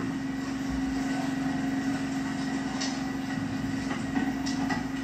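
Steady engine drone with a constant low hum, played through a television's speaker.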